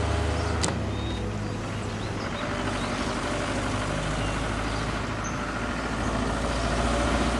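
Camper van driving by, a steady engine and road rumble.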